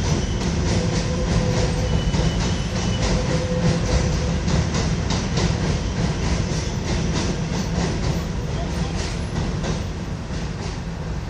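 New York subway train running over the Williamsburg Bridge: a steady low rumble with irregular clicking of wheels over rail joints, and a faint brief wheel squeal a couple of seconds in. It grows slightly quieter near the end.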